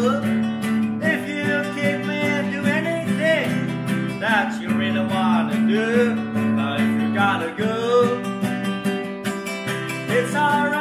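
Harmonica solo between verses: a neck-rack harmonica playing a bending, wavering melody over a strummed acoustic guitar.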